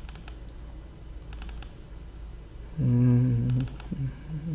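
Computer mouse clicks in quick double-clicks, three times, as folders are opened. About three seconds in, a low hummed 'mmm' is held for about a second.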